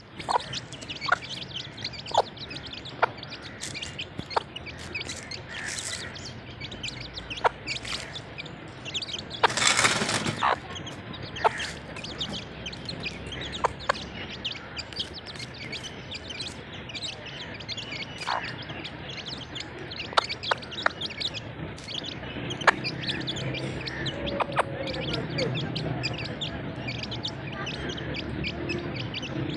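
Baby chicks peeping in short, sharp high chirps, many times over, while a mother hen is with them. About ten seconds in there is a brief rush of noise, and lower-pitched clucking-like calls build up in the last third.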